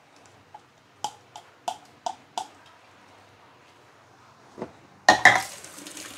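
Five quick sharp taps against a stainless steel mixing bowl, knocking the last of the garlic-ginger paste off, each with a short metallic ring; then a louder double clatter near the end.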